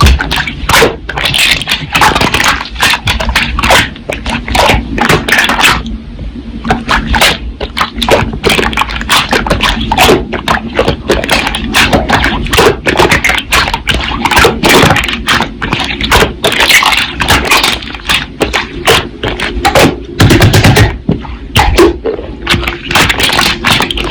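Slime being squished and pressed by hand, making a dense, irregular run of loud clicks and crackling pops.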